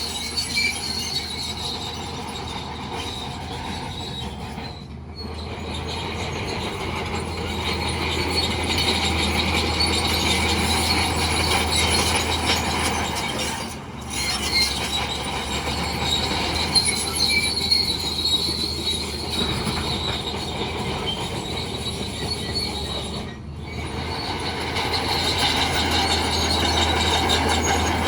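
Bulldozer at work: a steady diesel engine hum under the high metallic squeal and clatter of its steel crawler tracks. The sound dips briefly three times.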